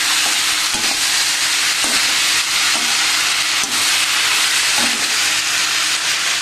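Sem (flat bean) sabzi with fresh tomatoes and dill sizzling steadily in hot oil in a metal kadhai while it is stir-fried, with a slotted spatula scraping through it about once a second.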